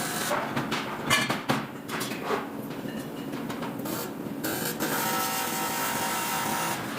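Metalworking noise: several sharp clanks and knocks of metal in the first couple of seconds, then a steady hiss from about four and a half seconds in.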